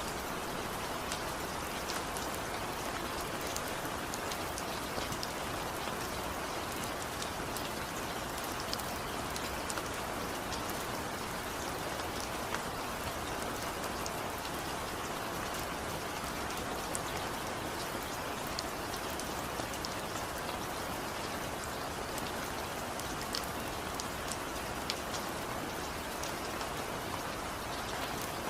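Steady rain falling, an even hiss with many separate drops ticking sharply on a surface.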